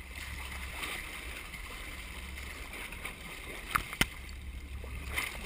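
Sport-fishing boat's engine running as a steady low rumble, with two sharp knocks in quick succession a little past the middle.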